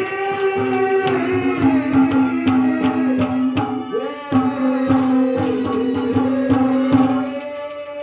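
Live folk accompaniment: a harmonium holding a steady chord under quick, regular hand-drum strokes, with a sliding melody line over the top. The music tails off about seven and a half seconds in.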